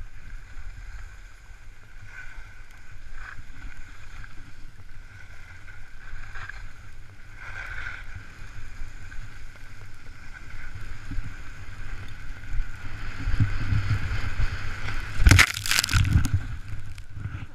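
Wind and snow rushing over a helmet-mounted action camera as a rider runs through deep powder snow, a steady low rumble that grows louder. About fifteen seconds in come a few loud sudden crashes as the rider falls into the snow.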